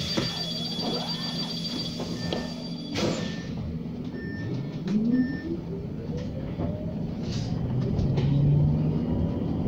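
SOR EBN 10.5 battery-electric bus pulling away. A steady high beeping tone stops with a knock about three seconds in, a few short beeps follow, then the electric drive motor's whine rises steadily in pitch as the bus accelerates.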